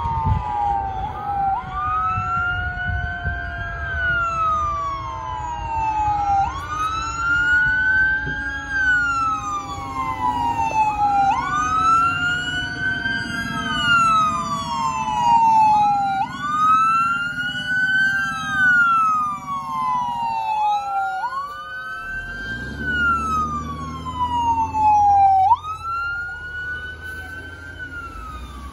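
Fire truck siren on a wail, rising and falling in pitch about every five seconds, over a lower tone that slowly slides down, as the fire apparatus approaches on an emergency run.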